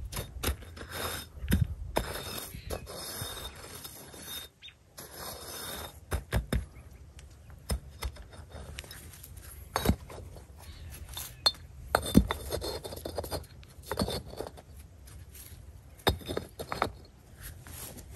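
Red clay bricks being set and shifted by hand on a bed of crushed gravel: gritty scraping of brick on gravel, broken by sharp clinks and knocks of brick on stone and brick on brick, the loudest knocks about ten and twelve seconds in.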